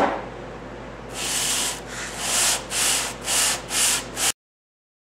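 A small V-twin engine's cylinder head is put down on WD-40-wetted 220-grit sandpaper with a knock, then rubbed back and forth in about six rasping strokes that get shorter and quicker. The head's gasket face is being lapped flat. The sound cuts off suddenly.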